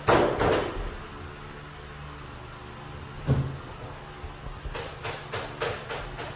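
A sharp knock at the start that dies away within half a second and a duller thump about three seconds in, then light sharp taps at about three a second near the end, over a low steady hum.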